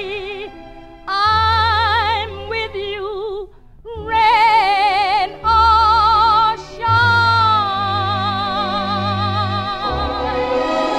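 Show tune: a woman sings long held notes with a wide vibrato over instrumental accompaniment, in phrases broken by short breaths.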